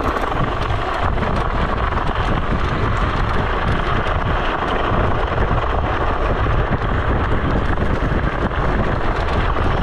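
Steady wind rushing over the microphone while riding a scooter, with rumble from the ride underneath.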